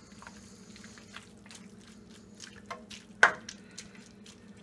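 A spoon stirring pasta through thick tomato sauce in a frying pan: wet squishing with scattered small clicks and one louder knock about three seconds in. A low steady hum runs underneath.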